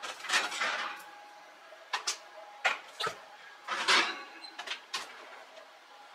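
Kitchen handling noises: a run of short knocks and clanks, as of a baking pan and utensils being moved about. Two longer scraping noises come about half a second in and around four seconds in.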